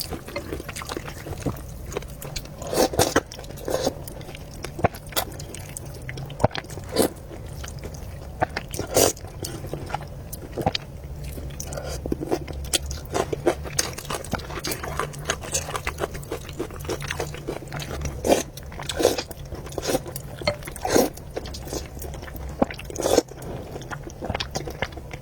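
Close-up eating sounds: chewing and biting of noodles and meatballs, with many irregular wet clicks and smacks.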